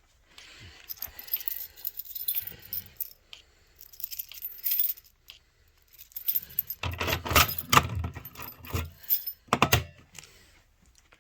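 A bunch of keys jangling, with irregular metallic clicks and rattles that are loudest in the second half.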